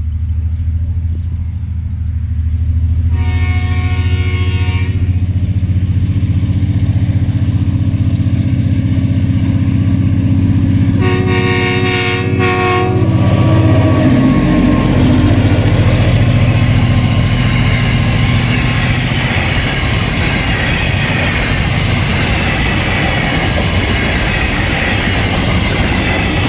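TasRail DQ class diesel-electric locomotives approaching with a steady low engine drone, sounding a multi-tone horn for the level crossing: one long blast a few seconds in, then two shorter blasts about halfway. The engine sound drops in pitch as the lead locomotive passes, and the empty ballast hopper wagons then roll by with a continuous wheel clatter.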